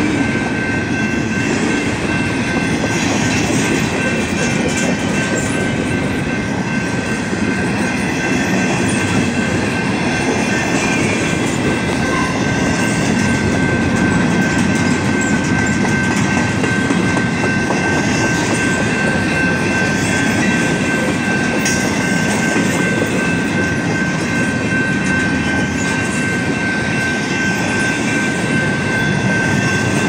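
Empty intermodal well cars rolling past on the rails, a steady rumble and clatter of wheels, with a steady high tone over it.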